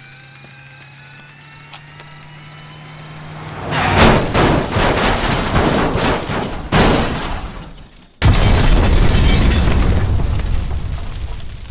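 Crash and explosion effects. About four seconds in a loud, noisy rumble swells up, with a sharp bang near seven seconds. After a brief cut to silence, a sudden heavy boom follows and slowly dies away.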